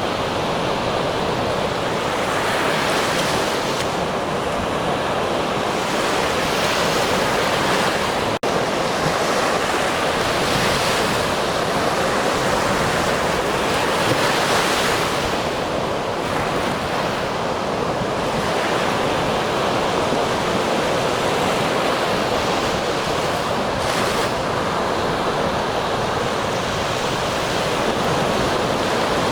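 Ocean waves: a steady rush of surf that swells every few seconds as waves break and wash in. A split-second dropout about eight seconds in.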